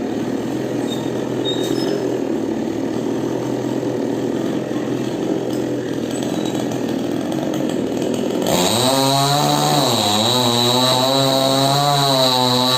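Chainsaw engine running steadily, then throttled up sharply about two-thirds in, its pitch wavering up and down as it works under load.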